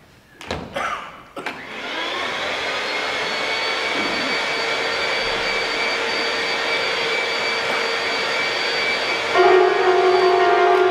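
Upright vacuum cleaner switched on after a few knocks, its motor spinning up to a steady whining run. Near the end a louder held musical note comes in over it.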